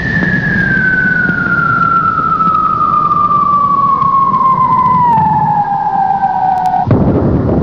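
Intro sound effect: a long whistle-like tone sliding slowly down in pitch over a rushing noise. It cuts off suddenly near the end, where a loud low rumble takes over.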